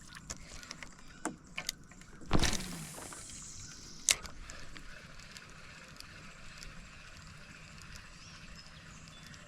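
A cast with a fishing rod and reel: a sharp swish about two seconds in with a falling hiss as the line pays out, a click about four seconds in, then a steady faint hiss of the buzzbait being reeled back.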